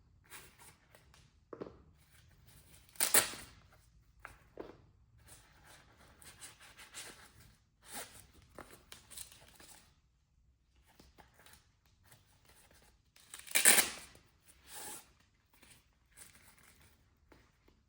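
Hands handling a plastic stud finder and its box packaging: intermittent rustling, scraping and short clicks, with two louder rustles about three seconds in and just under fourteen seconds in.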